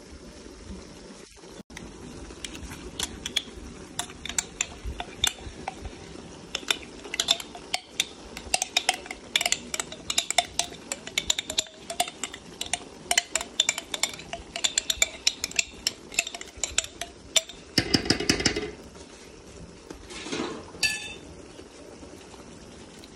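A metal fork clinking and scraping against a glass jar and an aluminium stockpot while crab paste is scooped out of the jar into the pot: many quick irregular clicks for several seconds, with a denser rattle near the end, over a steady low background noise.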